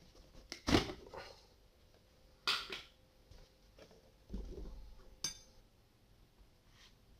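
A plastic jar and its screw-top lid being handled and set down: a few separate knocks and clacks, the loudest about a second in, with a sharp click about five seconds in.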